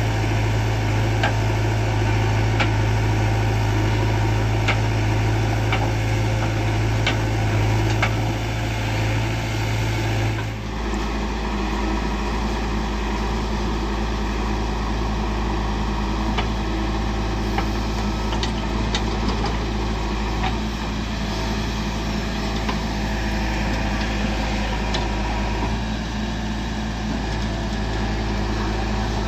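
Heavy diesel machinery running steadily: a backhoe loader and tractor engines, with sharp clanks during the first eight seconds. The engine note changes abruptly about ten seconds in.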